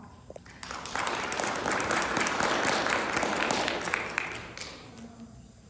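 Audience applauding. The clapping starts about half a second in, holds for a few seconds, then dies away by about five seconds in.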